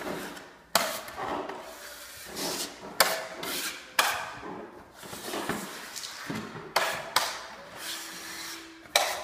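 Drywall taping knife scraping along Strait Flex tape and joint compound in about six strokes, each starting sharply and fading.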